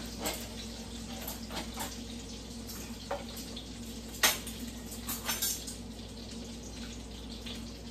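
Sausages sizzling in an oiled skillet, a steady hiss, while jars and utensils click and knock on the kitchen counter, the sharpest knock a little past four seconds in. A low hum runs underneath.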